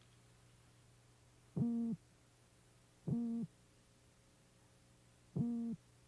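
Male toadfish giving its courtship call, the boatwhistle: three short hoots at a steady pitch, each about a third of a second long, spaced a second and a half to two seconds apart.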